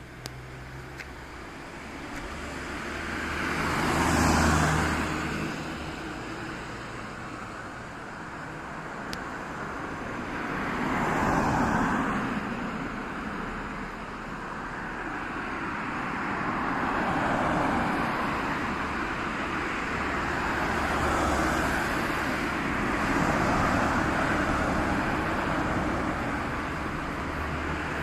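Road traffic: cars passing one after another, each swelling up and fading away, about five in all, the loudest about four seconds in, over a steady traffic hum.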